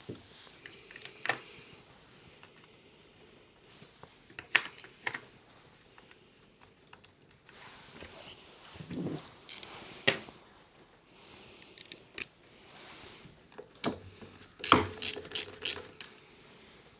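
Hand tools and small metal parts clicking and clinking now and then as a lawnmower engine is taken apart, with a cluster of louder clinks near the end.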